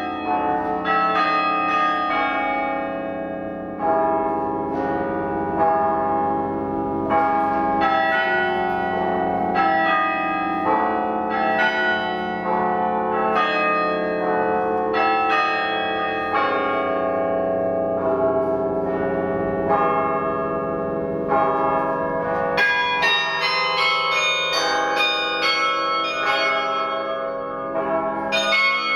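A bronze tower carillon of 72 bells playing a tune: struck bell notes ringing on and overlapping one another. From about two-thirds of the way in, the notes come faster and higher.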